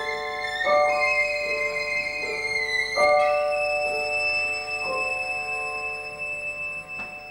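Violin and piano playing together: the piano strikes chords about once a second while the violin plays a high line that climbs and then holds one long note, fading out near the end as the piece closes.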